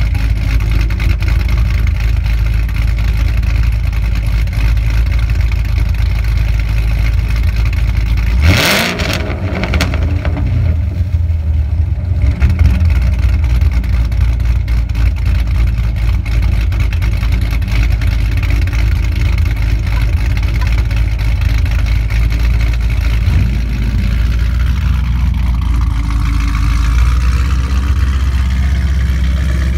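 Chevrolet Camaro SS's 6.2-litre V8 idling with a deep, steady exhaust note through quad tailpipes. The throttle is blipped in one sharp rev about eight seconds in, and there is a smaller rev about fifteen seconds later.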